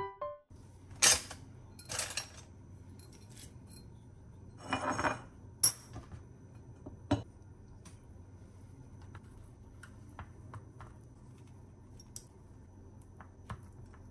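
Kitchen prep sounds: a few clatters and sharp clinks of utensils and containers in the first half, then sparse light taps of a knife slicing a block of luncheon meat on a plastic board.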